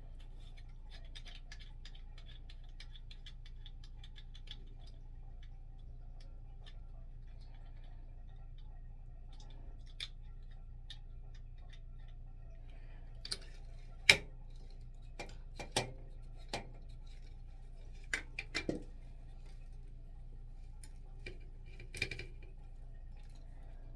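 Scattered clicks and knocks from handling and fitting together a small extendable tripod and ring-light smartphone mount, with faint quick ticking in the first few seconds and the loudest click about 14 seconds in, over a steady low hum.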